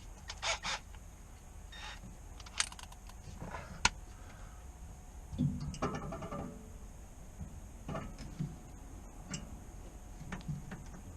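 Scattered metallic clinks and knocks of bolts, washers and hand tools being handled while fitting hardware, with a busier stretch of knocking and rubbing a little past the middle.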